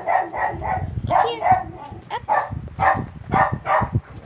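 A small puppy yapping repeatedly: about a dozen short, high barks, in quick clusters with brief gaps between them.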